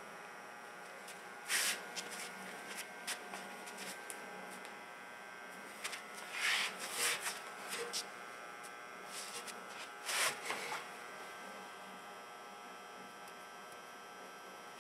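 Sock-clad feet scuffing and stepping on a gritty, dusty floor: a few brief scrapes about a second and a half in, around six and a half to seven seconds, and around ten seconds, over a steady electrical hum.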